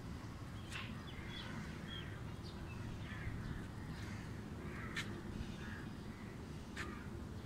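Crows cawing a few times over a steady low rumble, with a few sharp clicks.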